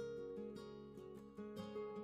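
Background music: a plucked guitar tune, notes changing every half second or so.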